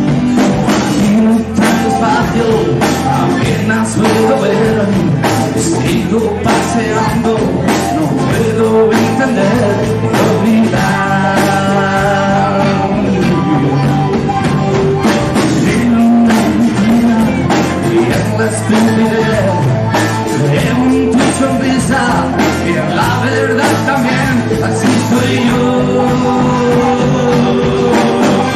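Rock music: a sung vocal over instruments with a steady beat.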